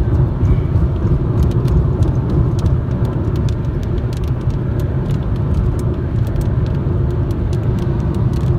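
Steady road and tyre rumble heard inside a moving car's cabin, with faint scattered light ticks over it.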